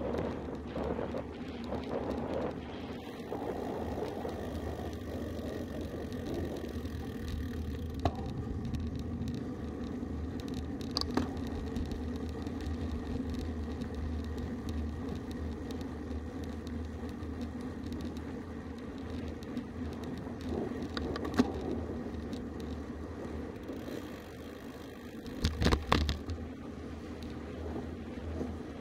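Road bike rolling on asphalt, heard from a handlebar-mounted camera: steady tyre and wind noise, with a few sharp clicks or knocks and a louder clatter of them near the end.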